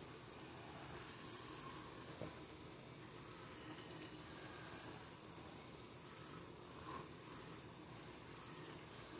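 Kitchen faucet sprayer spraying water into a stainless steel sink full of dish-soap suds: a steady, faint hiss of running water with fizzing and a few brief high crackles.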